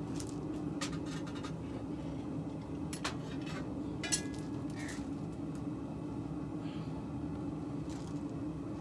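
Pieces of metal clinking and tapping against each other, a handful of light knocks with a brief ring, the loudest about four seconds in, over a steady hum.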